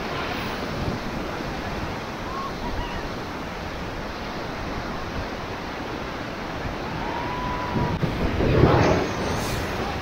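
Whitewater rapids rushing steadily around an inflatable raft. About eight and a half seconds in there is a louder splash of water that lasts under a second.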